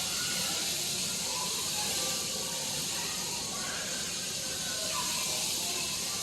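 Steady hiss at an even level.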